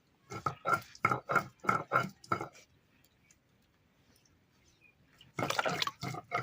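Hands kneading maida dough in a bowl: about seven quick rhythmic strokes, then a pause, then water being added near the end.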